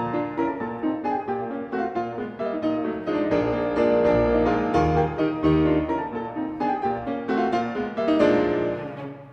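Background piano music: a run of quick notes over lower bass notes.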